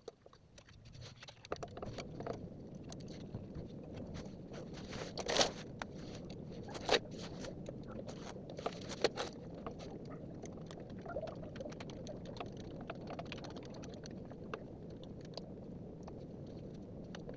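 Hand ratchet loosening the steel transmission oil pan bolts under the van: a few sharp metallic clicks and knocks between about five and nine seconds in, over a steady low hiss.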